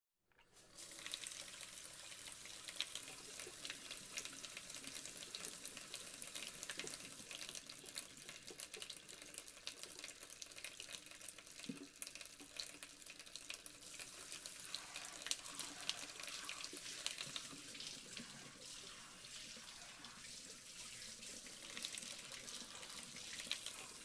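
Cement waterfall fountain running, its water splashing steadily and faintly into the basin; the sound fades in at the start and cuts off suddenly at the end.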